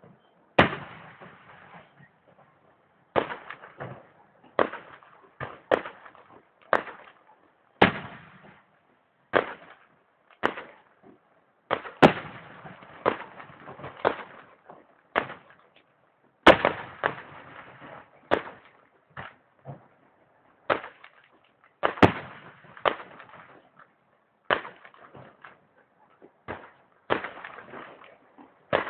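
Fireworks display: a rapid, irregular series of sharp bangs from bursting aerial shells, about one a second, some doubled up close together, each trailing off briefly.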